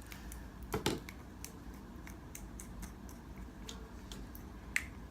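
Light, irregular clicks and taps of a stir stick against a plastic cup as glue for slime is stirred, with a louder knock about a second in and another near the end.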